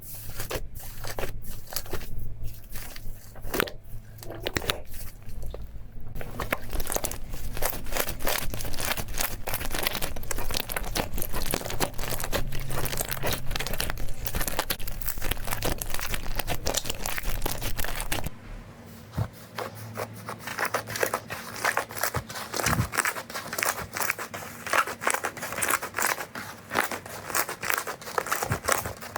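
Slime being squeezed and pressed by hand, a dense run of small crackles and pops. About 18 seconds in a low hum beneath drops away and the crackling turns sharper.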